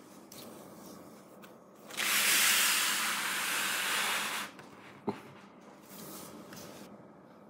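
A steady hiss of about two and a half seconds that starts and stops abruptly, followed about half a second later by a single sharp click.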